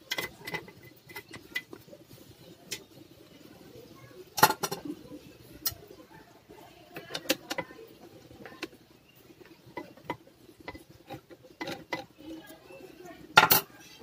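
Scattered small clicks and taps of a screwdriver and hands working on a laptop's plastic bottom case while undoing the hinge screws, with two louder sharp knocks, about four seconds in and near the end.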